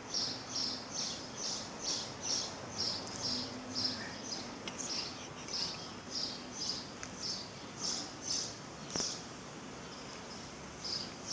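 Rhythmic high-pitched chirping from a small animal, about two to three chirps a second, with a single sharp click about nine seconds in.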